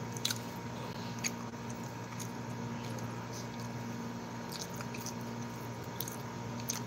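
Close-up eating sounds: a man chewing rice and curry, with soft wet mouth noises and a few short clicks as his fingers mix food on a steel plate. A steady low hum runs underneath.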